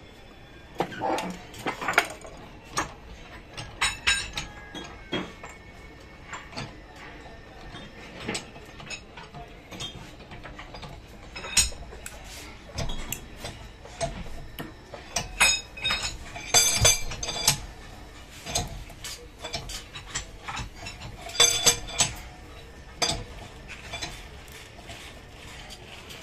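Steel compression-mold blocks and hand tools clinking and knocking against each other and the press bench as a rubber mold is handled and set under a hand-operated screw press: irregular sharp metallic clinks, in louder clusters in the middle and toward the end.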